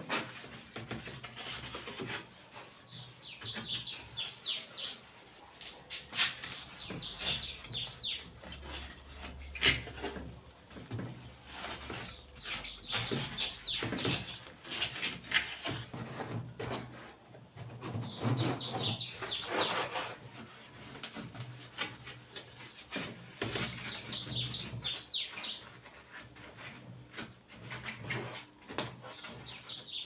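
Soapy sponge scrubbing and rubbing on the plastic tub and lids of a twin-tub washing machine, with scattered brief knocks. A bird chirps short repeated phrases every few seconds.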